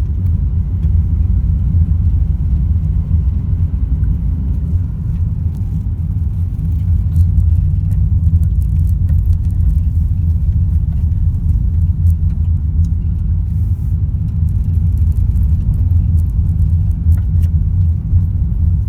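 Steady low rumble of a car being driven, heard from inside the cabin: engine and road noise, with a few faint ticks.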